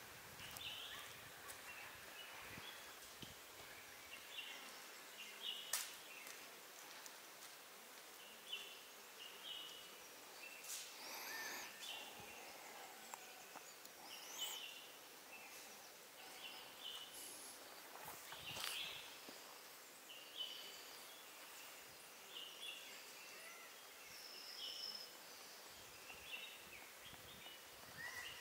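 Faint forest ambience with short bird chirps every second or two and a few sharp clicks scattered through it.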